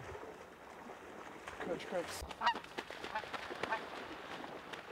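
Canada goose honks: a series of short, separate honks starting about one and a half seconds in and repeating every half second or so.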